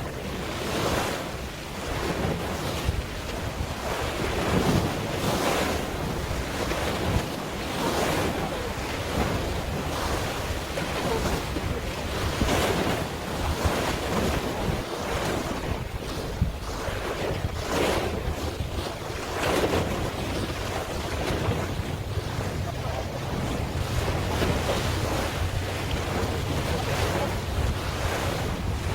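Sea water washing and splashing in repeated surges, with wind buffeting the microphone.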